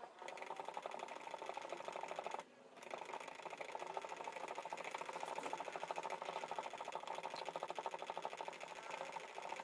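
Flat wooden stick stirring homemade Danish oil (linseed oil, clear varnish and mineral spirits) in a small cup: a rapid, even scraping rhythm of the stick against the cup wall, breaking off briefly about two and a half seconds in.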